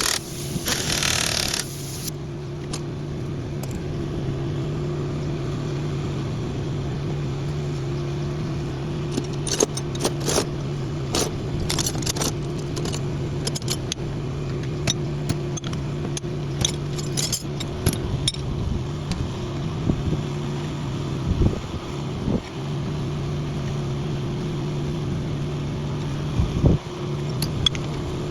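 An engine running steadily at an even idle, with scattered metallic clicks and clanks over it, more of them around the middle.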